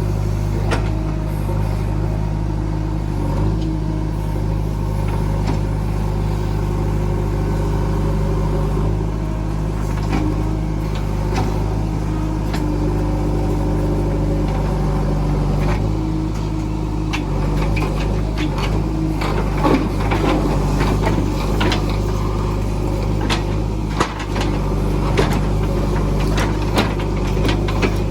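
JCB 3DX backhoe loader's diesel engine running steadily under way, with scattered knocks and clatters, more of them in the second half.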